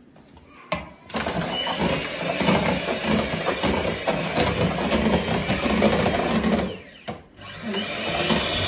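Electric hand mixer running, beating cake batter in a bowl. It starts about a second in, stops briefly near the end and starts again.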